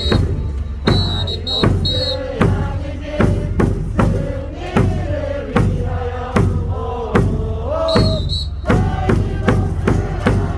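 Baseball player's cheer song playing over a stadium PA, with a steady, regular drum beat and a melody, while the crowd chants along.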